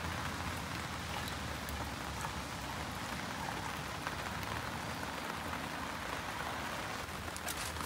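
Steady rain falling, an even patter that keeps up without a break.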